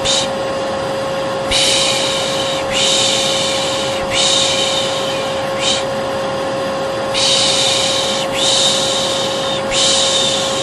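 A vacuum cleaner runs with a steady hum throughout. Over it, a person's 'pış pış' shushing, the Turkish lulling 'shh' for a baby, repeats about seven times. Most shushes last about a second and a couple are short.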